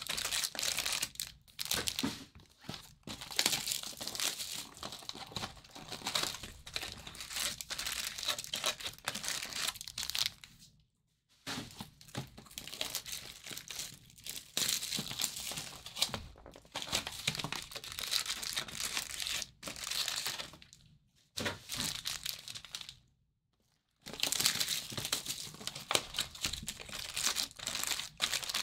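Trading-card packaging crinkling and tearing in bursts as sealed boxes and packs are opened by hand, with a few brief pauses.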